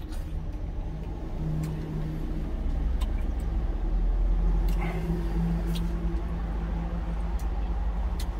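Steady low hum of a motor vehicle's engine running, with a handful of light clicks of a spoon against a steel food jar.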